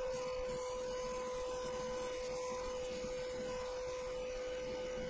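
Mini lathe running with a steady high whine, its carbide-insert tool facing the spinning steel electromagnet housing. The whine rises briefly in pitch right at the start, then holds level.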